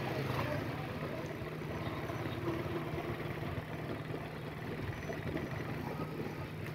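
A motor vehicle's engine running steadily at low revs, with street noise.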